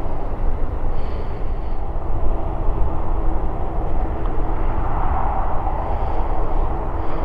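Twin CFM56-7B turbofans of a Boeing 737-700 running at high power on the takeoff roll: a continuous deep jet rumble, with a faint steady hum joining a few seconds in and the roar growing louder about five seconds in.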